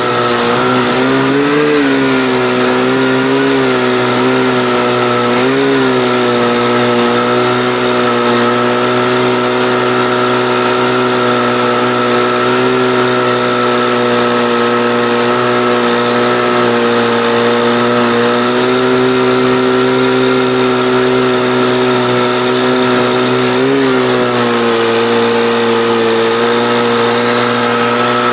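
Jet ski engine driving a canoe, running steadily with a hiss of rushing water over it. Its pitch rises briefly three times, about two seconds in, about six seconds in and near the end.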